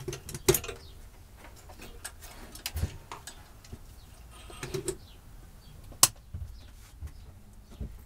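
Scattered clicks and knocks of leads and clips being handled while a 12 V wet and dry vacuum is connected to a battery and charger, with one sharp click about six seconds in. The vacuum itself is not yet running.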